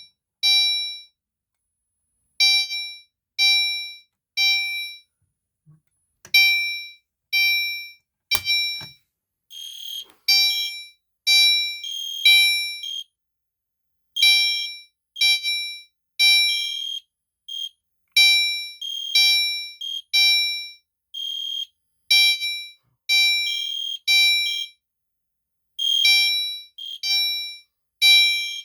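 Gentex Commander 3 fire alarm horn strobe on its chime setting, sounding repeated ringing chime tones that fade after each strike, in short groups with pauses. From about ten seconds in an EST Genesis horn sounds along with the chime in the same grouped pattern, just after a sharp click.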